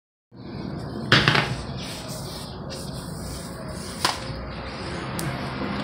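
Tool handling on a workshop floor over a steady background hiss: a short clattering knock about a second in, then a sharp click about four seconds in as a cordless drill is picked up, and a fainter click a second later.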